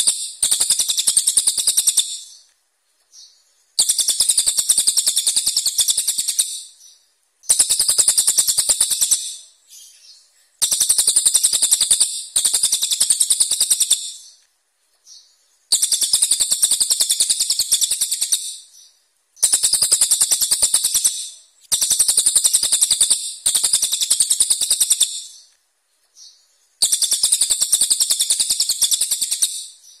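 A brown cililin songbird singing in repeated bursts of rapid, harsh, sharp high notes, the 'tembakan kasar tajam' (rough, sharp shots) prized in contest-bird training. About eight bursts of two to three seconds each, with short pauses between.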